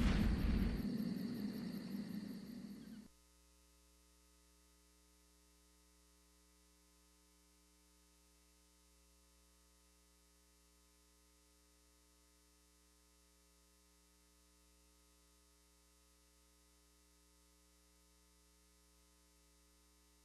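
A louder sound fades out and cuts off abruptly about three seconds in. It leaves near silence with a faint, steady electrical mains hum.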